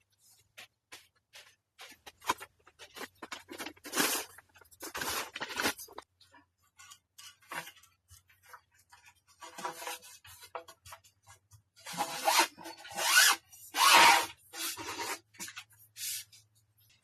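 Irregular rustling, rubbing and scraping of fabric and gear being handled, in short bursts with a few longer, louder ones, over a faint steady low hum.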